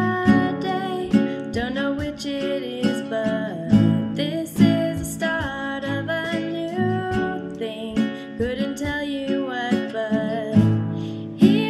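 Background music: strummed acoustic guitar with a sung melody.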